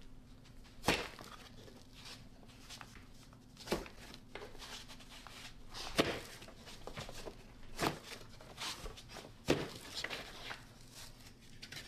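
Scored cement backerboard being snapped along its score line and handled: about five sharp knocks and cracks a second or two apart, with low scraping and crunching between them.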